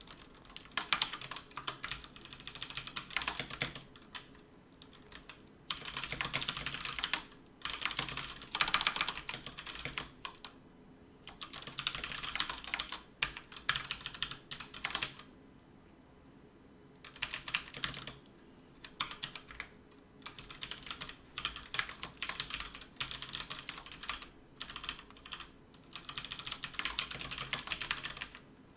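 Fast typing on a computer keyboard: rapid runs of key clicks lasting a few seconds each, broken by short pauses.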